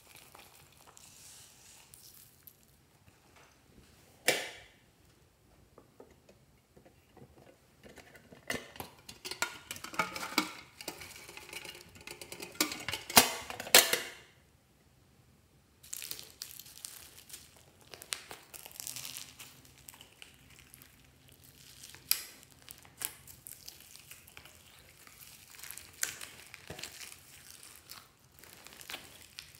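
Small decorations such as confetti, sprinkles and foam beads rattling and clicking as they are tipped out of containers onto clear slime, with a dense run of crackling about halfway. In the second half, hands knead the bead-filled slime, making sticky squelches with small crackles and pops.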